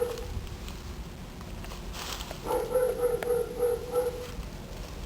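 Dog making a long, steady, wavering whining call about two seconds in, lasting around two seconds, with the tail of a similar call right at the start.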